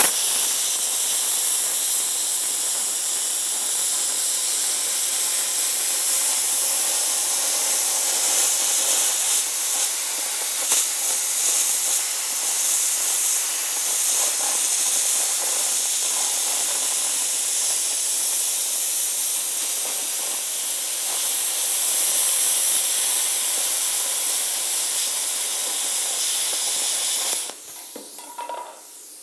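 Plasma cutter cutting a circle out of sheet metal: a loud steady hiss of the arc and air jet. It stops about two seconds before the end, leaving a fainter hiss.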